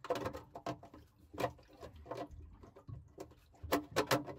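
Irregular plastic clicks and taps as a perforated plastic shower-sump filter screen is pressed and shifted by hand, being aligned so it clears the float switch. There is a quick cluster of sharper clicks near the end.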